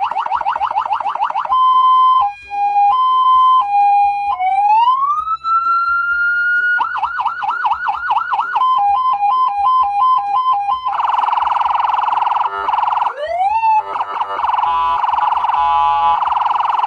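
A CJB 200-watt electronic siren amplifier sounding through its speaker and cycling through its tones. It starts with a rapid yelp, then a slow two-tone hi-lo, then a wail that rises and holds high. After that come a faster yelp, a quicker hi-lo, and last a very rapid warble with a short upward swoop in the middle.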